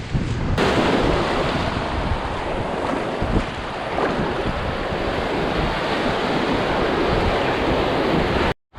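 Big lake waves breaking on the shore, with strong wind buffeting the microphone; the sound cuts out briefly near the end.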